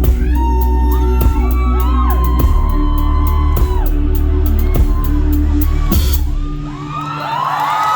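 Live band playing the closing bars of a rock song, with drum kit and bass over held chords, and the crowd whooping along. The music stops about six and a half seconds in and the crowd breaks into cheering.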